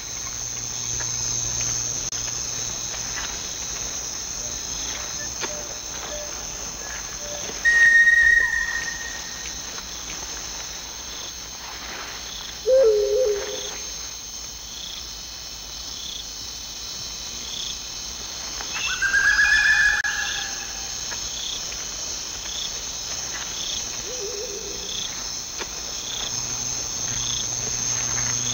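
Night insect chorus, crickets trilling steadily at a high pitch. A few short, louder whistle-like calls break in about eight, thirteen and twenty seconds in; the one at thirteen seconds is lower-pitched and the loudest.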